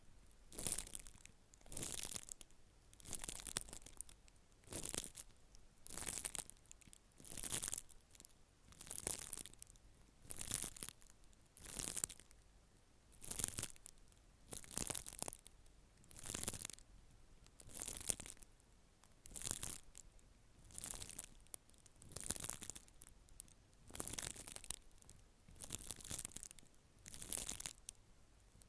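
Slow, even brushing strokes, about one every second and a half, each a soft swish that swells and fades: a brush drawn through hair close to the microphone.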